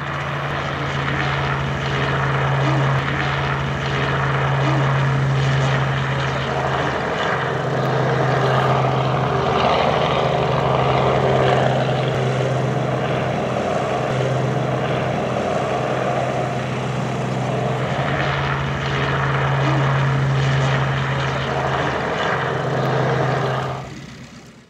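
Robinson R44 light helicopter lifting off and flying away: steady engine and rotor noise with a constant low hum, fading out near the end.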